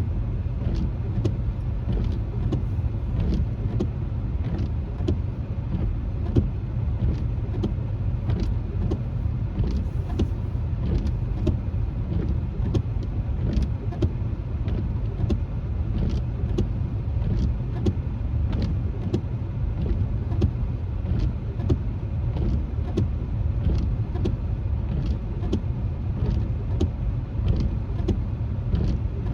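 Steady low road and engine rumble inside a moving car's cabin, with irregular sharp taps a few times a second: raindrops hitting the windshield.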